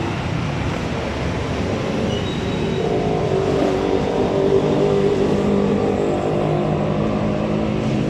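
Motor vehicle engine running steadily, its drone swelling about three seconds in.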